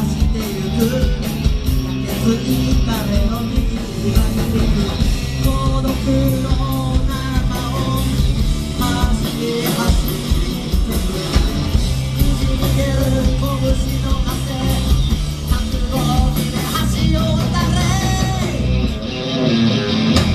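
Punk rock band playing live: a singer's vocals over electric guitars, bass and drums keeping a steady beat, heard as a loud room recording from the audience.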